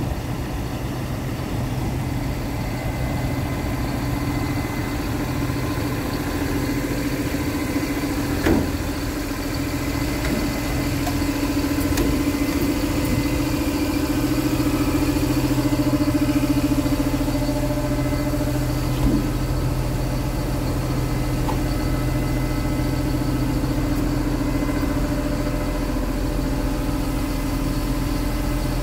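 Scania R450 truck's 13-litre straight-six diesel idling steadily, with two brief knocks.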